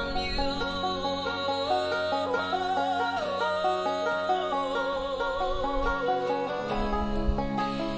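Banjo picked in a simple backing accompaniment, its plucked notes under a slow song with a sung voice holding long, wavering notes.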